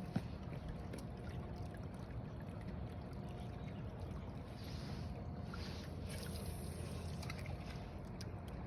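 Steady low outdoor rumble on a phone microphone, with faint trickling water from the river and a few light clicks.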